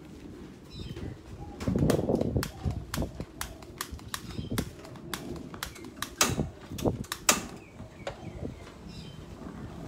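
Irregular sharp clicks and light knocks from a pan being handled on a gas-stove grate, with a duller thump about two seconds in.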